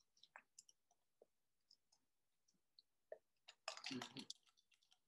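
Near silence with faint scattered clicks, and a brief rustle about four seconds in as the pages of a book are handled.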